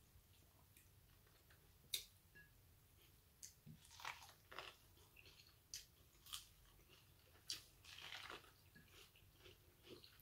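Quiet biting and chewing of fresh corn on the cob, with scattered crisp crunches of the kernels. A sharp click comes about two seconds in, and clusters of crunching follow over the next several seconds.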